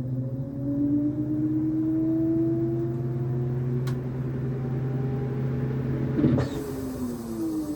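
Samsung WA16A6374BW top-loading washing machine running in test mode: a steady motor hum under a whine that rises slowly in pitch as the drum speeds up. A single click comes about four seconds in. A clunk follows a couple of seconds later, after which the whine falls in pitch.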